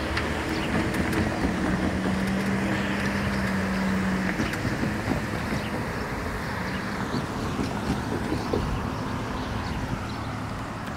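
Cars driving across a railroad crossing one after another: tyre and engine noise, with one car's steady engine hum standing out from about a second and a half in until about four seconds.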